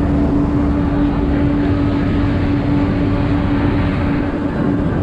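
Open-top double-decker bus driving, heard from its open upper deck: a steady engine and drivetrain rumble with a held whine that drops out near the end, and wind buffeting the microphone.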